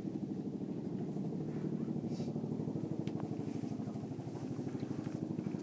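An engine running steadily, its low hum throbbing with a fast, even pulse, with a few faint clicks about three seconds in.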